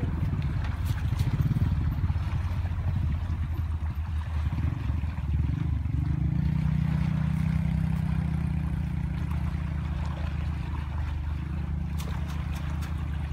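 Steady low drone of an engine running, strongest for a few seconds mid-way, with a couple of sharp clicks near the end.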